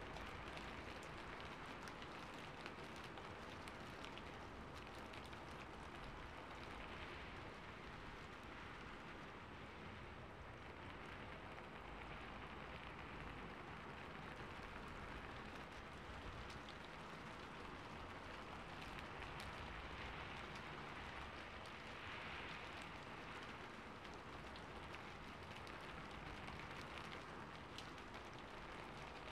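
Calm, steady rain, an even hiss of falling rain with faint scattered drop ticks.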